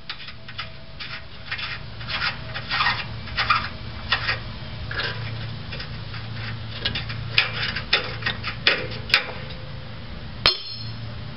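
Socket ratchet backing the 19 mm nut off the rear leaf spring's front hanger bolt in short, repeated clicking strokes. A few sharp metal knocks come near the end, the loudest about ten seconds in.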